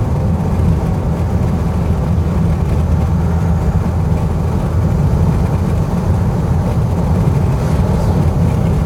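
Steady low drone of road and engine noise inside a vehicle's cabin cruising at highway speed.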